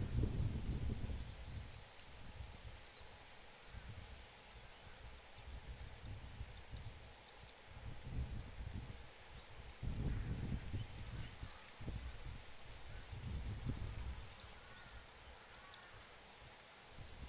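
Insect, a cricket or katydid, chirping in a steady even rhythm, about three short high-pitched chirps a second, over a continuous higher-pitched trill.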